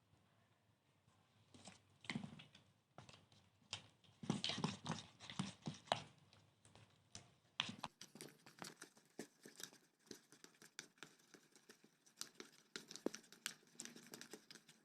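Faint, irregular wet clicks and squishes of a runny homemade slime mixture being stirred after dishwashing liquid is added, still too liquid to have set.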